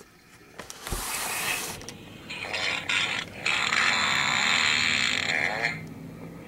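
A thump about a second in, then a steady mechanical grinding rattle for about three seconds, with a short burst of the same near the end.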